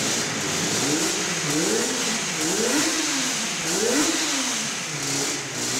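Classic racing motorcycle engine running with its rear wheel on a roller starter, the throttle blipped so the revs rise and fall about three times in quick succession, settling back toward idle near the end.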